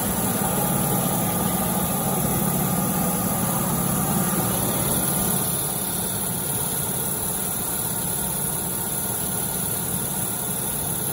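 Twin-screw snack pellet extrusion line running, with its die-face cutter: a steady machine hum under a high hiss, easing slightly about halfway through.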